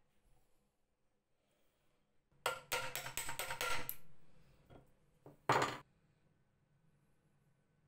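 Hammer knocking a metal bracket and bolt loose from an old potato slicer's frame: a quick run of about seven ringing blows over a second and a half, then two light taps and one louder knock.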